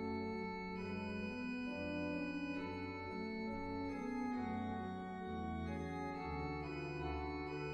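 Slow organ music: sustained chords over a deep held bass, changing every second or so.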